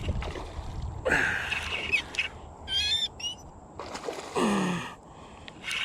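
Birds calling: two harsh squawking calls, about one second and four seconds in, and a short, high, warbling chirp near the three-second mark.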